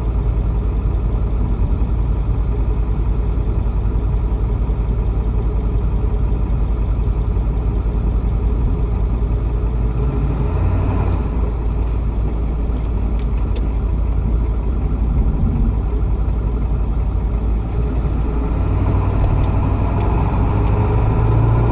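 Engine and road noise inside the cabin of a moving car: a steady low rumble, with the engine note rising a little about halfway through and again near the end.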